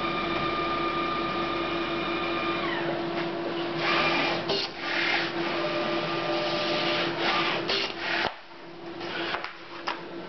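Memjet SpeedStar3000 inkjet label printer running as it prepares a print job: a steady hum with a motor whine that falls away about three seconds in, then several bursts of mechanical noise from the paper path. The hum stops suddenly about eight seconds in.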